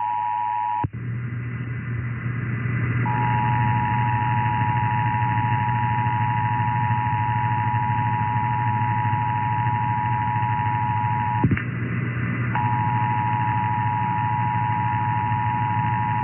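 Emergency Alert System attention signal: a steady two-note tone (853 and 960 Hz) received off the air over radio hiss and a low hum. The tone breaks off about a second in, comes back about two seconds later, cuts off with a click, and resumes a second after that.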